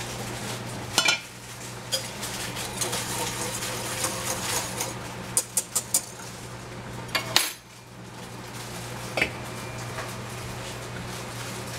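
Stainless steel saucepan and its lid clanking as the lid is taken off and put back, with a wire whisk stirring milk and clinking against the pot. The metal clinks are scattered, with the loudest a little past the middle, over a steady low hum.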